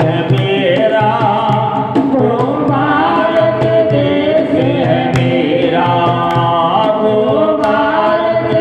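Devotional Hindi song: group voices singing a held melody over a steady percussion beat.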